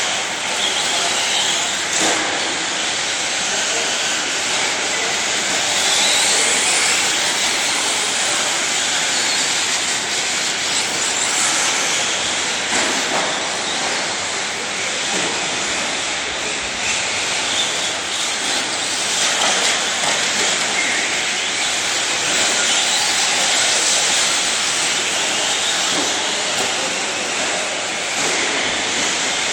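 Radio-controlled 4x4 short-course trucks racing on a dirt track: motors and tyres on loose dirt, making a steady mixed noise as the trucks pass.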